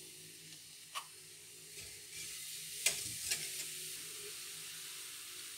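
Citric acid powder sprinkled into a steel pot of baking-soda solution, fizzing with a steady hiss as the acid reacts and foams; the fizz grows louder about two seconds in. A few sharp clicks of the container or whisk against the pot.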